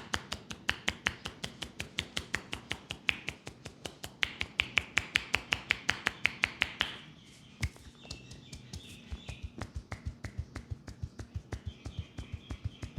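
Rapid, even hand strikes of a percussive barber massage, about six a second. For the first seven seconds they are sharp, clapping slaps; after a brief pause they turn into duller, deeper thuds.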